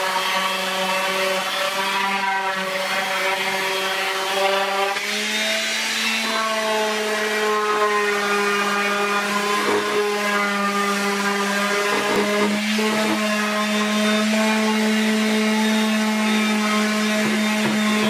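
HiKOKI random orbital sander running steadily while sanding wood, a constant motor hum with a slight change in pitch about five seconds in.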